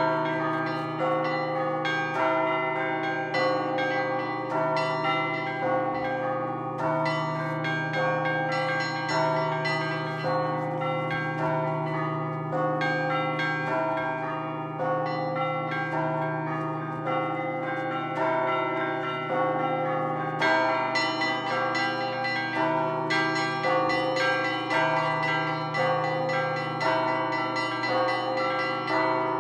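Russian Orthodox church bells rung in a continuous festive peal: small bells chiming in quick rhythmic patterns over the longer-ringing tones of the larger bells.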